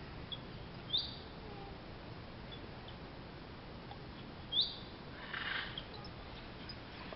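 Bird chirping twice, two short high chirps about three and a half seconds apart over steady outdoor background hiss, with a brief rustle soon after the second chirp.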